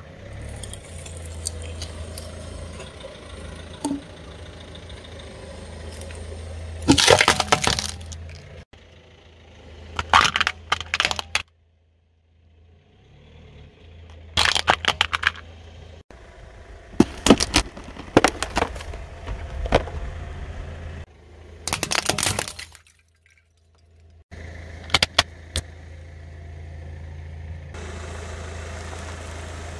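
A car tyre slowly crushing brittle objects (a small wooden djembe drum, then hard plastic toy pistols): several bursts of loud cracking and snapping, with short quiet breaks between them. The car's engine idles as a steady low hum under the cracks.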